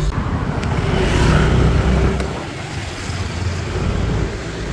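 Road traffic noise with a heavy low rumble that swells about a second in and eases after about two seconds.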